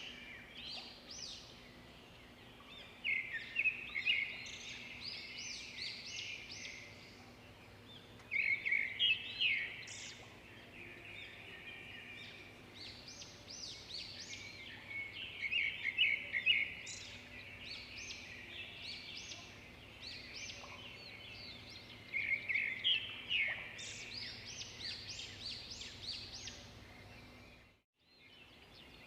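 Birds chirping in repeated bursts of quick, high notes, over a faint steady low hum.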